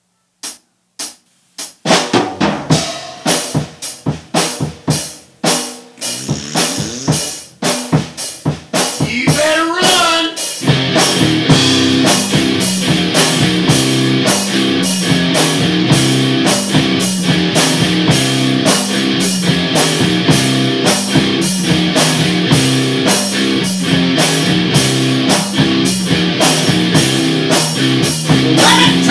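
Hard-rock band intro: a drum kit plays alone at first, its hits coming closer together, then about ten seconds in electric guitar and bass come in with a steady repeating riff under the drums.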